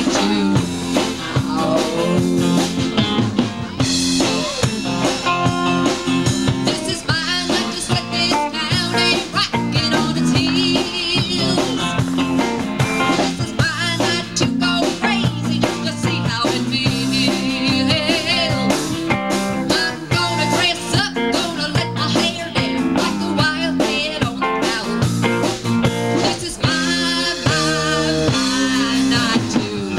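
A live band playing a blues-rock song: guitar over bass and a drum kit with a steady beat, and wavering sustained notes on top.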